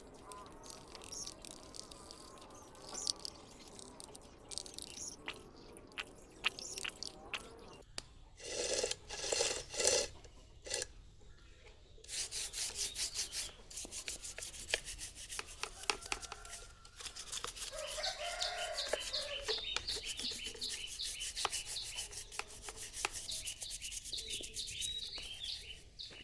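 Rubbing strokes in quick, even runs, with scattered clicks and knocks, from hand work cleaning an old chainsaw's parts.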